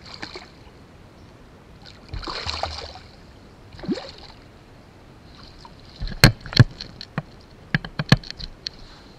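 Water splashing and swirling beside a kayak as a released black drum thrashes at the surface and swims off, about two seconds in and again near four seconds. From about six seconds, a quick run of sharp knocks and taps, the loudest sounds here.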